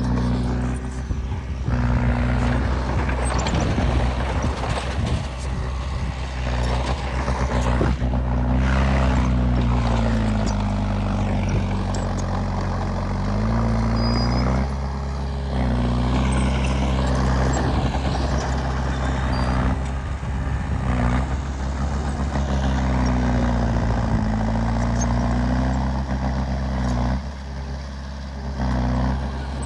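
Heavy diesel machinery engines running hard under load in mud, the engine pitch repeatedly sagging and climbing again as the machines strain.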